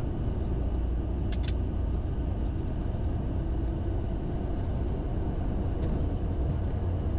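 Cockpit noise of a Bombardier Challenger 350 business jet on its landing rollout: a steady low rumble from the wheels on the runway and the engines.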